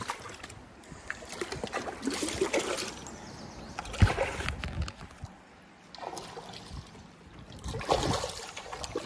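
Hooked smallmouth bass thrashing and splashing at the surface against the rocks in several separate bursts, the loudest and sharpest about four seconds in.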